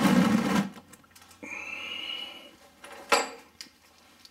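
Handling noises while working under a car: a loud scraping rustle that stops about half a second in, then a short high squeak and a single sharp click about three seconds in.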